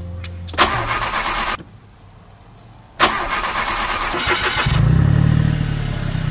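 Mitsubishi hatchback's starter cranking in two loud bursts with a short quiet gap between. About four and a half seconds in, the engine catches and runs with a steady low hum. It is being restarted after stalling.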